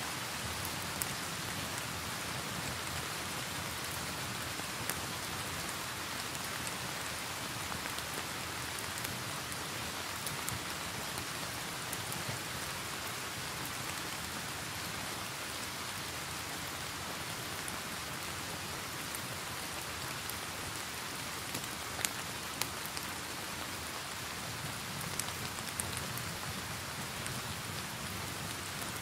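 Steady rain hiss mixed with a fire's scattered sharp crackles and pops, a few of them standing out about two-thirds of the way through.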